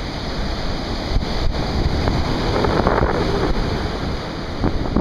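Surf breaking and washing up the beach, with wind buffeting the microphone in a low rumble. The wash swells louder about halfway through, then eases.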